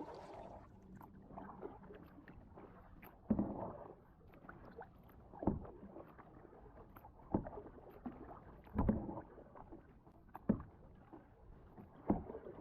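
Kayak paddle strokes in calm water: six soft splashes of the blade dipping and pulling, roughly every second and a half to two seconds.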